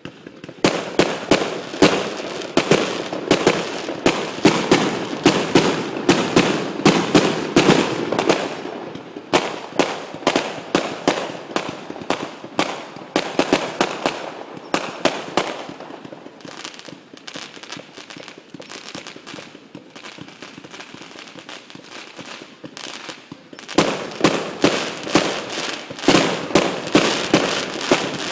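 Fireworks display: shells bursting in rapid succession, a dense run of sharp bangs that thins out to fainter pops about two-thirds of the way through, then comes thick and loud again near the end.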